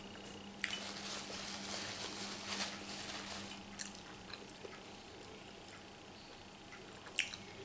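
A person chewing grilled squid and handling it at the plate. A rustly stretch runs through the first half, with a few sharp clicks.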